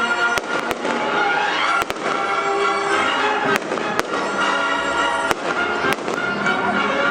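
Fireworks going off in a display: several sharp bangs and cracks at irregular intervals, about one a second, over loud orchestral music with held string notes.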